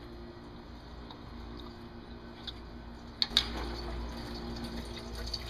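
Engine coolant draining from the radiator's drain petcock through a vinyl hose, a steady trickle of liquid. A couple of sharp clicks about three seconds in as the radiator cap is released, after which the flow grows a little louder.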